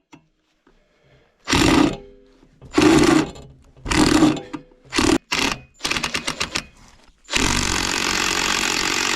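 A hand-held power tool on a stripped metal bolt. It runs in several short bursts of about half a second, then stutters rapidly for under a second, then runs steadily from about seven seconds in.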